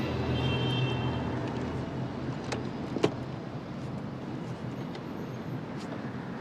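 Steady city-street background of passing traffic, with a sharp click about three seconds in. The last tones of an eerie film score fade out in the first second.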